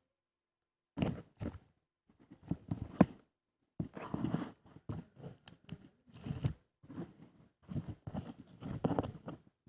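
Close-up crunching and chewing in irregular bursts, starting about a second in.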